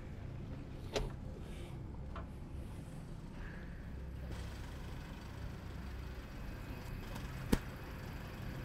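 Pickup truck engine idling low and steady. There is a faint sharp click about a second in and a louder click near the end.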